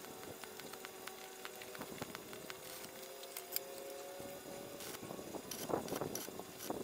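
Stick arc welder crackling in short bursts as the corner of galvanized steel square tubing is tack-welded, with light metal clicks as the tube and magnetic angle clamp are shifted between tacks. A faint steady hum lies underneath, and the loudest crackle comes about five and a half seconds in.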